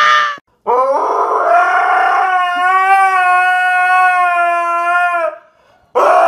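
A dog howling: one long, steady howl of about four and a half seconds, with the end of another just as it begins and a fresh one starting near the end.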